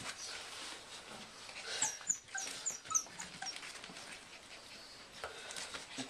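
Five-week-old English Bull Terrier puppies whimpering, with a quick run of about five short high squeaks between two and three seconds in, over rustling as they scramble about.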